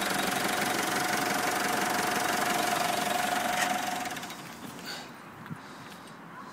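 Mitsubishi L200's 2.5-litre turbo diesel engine idling steadily with a faint steady whine over it, running as it should with no abnormal knocks. There is a click a little after three and a half seconds, and the engine sound falls away about four seconds in.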